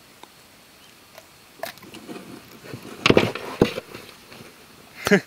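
Handling noises as a small wels catfish is unhooked and lifted in a boat: scattered knocks and rustles, loudest about three seconds in and again just before the end.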